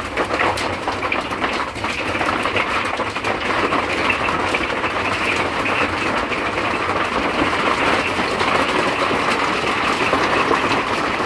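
Hail hitting the roof and walls of a fifth-wheel RV, heard from inside: a dense, steady rattle of countless small impacts.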